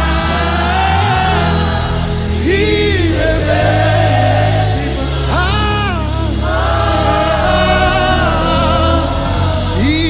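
Gospel worship singing: a lead voice sliding between long held notes over a choir, with steady low sustained notes underneath.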